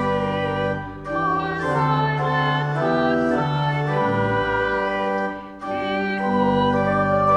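Pipe or electronic church organ playing a hymn with voices singing along, in held notes with short breaks between phrases about a second in and again about five and a half seconds in.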